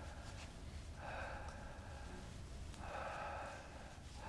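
A man making three breathy hissing sounds with his mouth, each lasting about a second, with short pauses between them.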